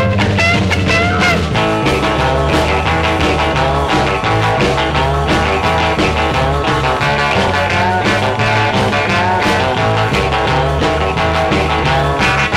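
Recorded rock and roll guitar instrumental: electric guitar over bass and drums with a steady beat. The guitar bends notes up in the first second or so, then plays driving chords, with held high notes coming in near the end.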